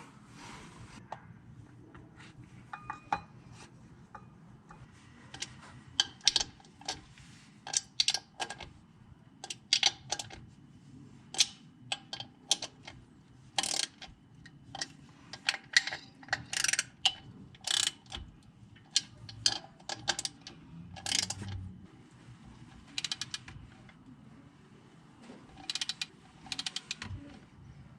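Socket ratchet clicking in many short, irregular bursts, with some metal clinks from tools and parts.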